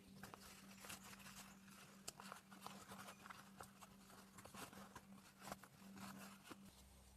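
Faint rustling and small crinkles of denim and cotton lining fabric being handled and turned by hand, over a low steady hum.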